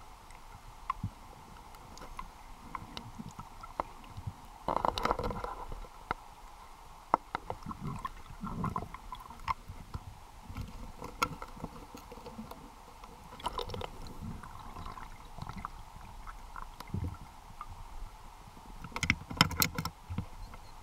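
Muffled sound recorded underwater: gurgling water and bubbles over a faint steady hum, with scattered clicks and knocks and louder bursts about five seconds in and again near the end.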